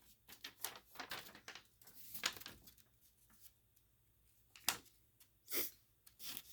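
Paper manual being handled: soft rustles and light clicks, with a few louder swishes, the loudest near the end.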